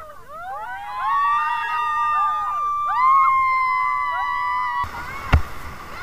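Several people in the water letting out long, high-pitched overlapping whooping calls, each held for a second or two and sliding up at the start and down at the end. About five seconds in, this gives way to the rushing water of whitewater rapids with sharp knocks.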